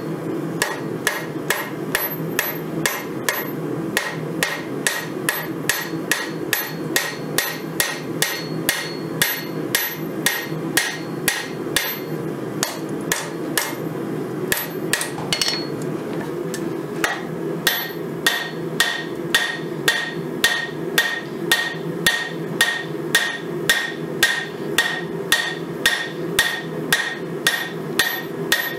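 Hammer blows on red-hot 5160 steel against an anvil, about two a second with a bright ring on each strike, thinning out briefly midway. A steady low hum runs underneath.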